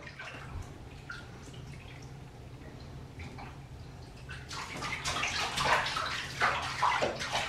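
Water splashing and sloshing in a bathtub over a steady low hum, the splashing growing busier and louder about halfway through.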